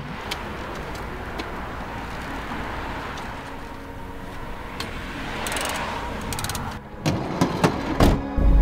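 Steady road and engine noise of a vehicle adapted for disabled passengers, driving along. A few sharp knocks come near the end.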